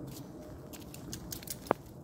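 Footsteps on a wet, slushy paved path: a light crackle of short ticks, then one sharp click near the end.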